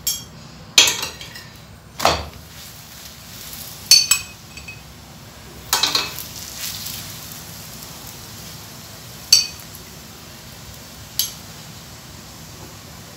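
Metal spoon clinking against a stainless steel frying pan as oil is spooned and spread over a frying chapati: several sharp clinks a second or two apart, fewer toward the end, over a low steady sizzle.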